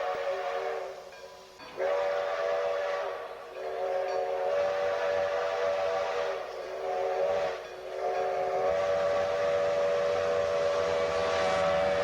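Steam train whistle sounding a chord of several tones in five blasts with short breaks between them. The last blast, from about two-thirds of the way in, is the longest and is held. A steamy hiss runs through it, and a low rumble joins under the last blast.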